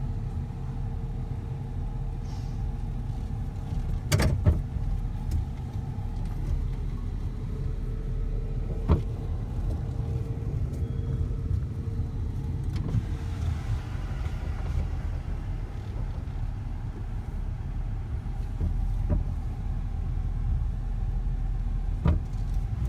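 Inside a vehicle's cab while it drives slowly: a steady low rumble of engine and road, with a faint steady hum that fades about halfway. A few short sharp knocks come about four seconds in, near nine seconds, and near the end.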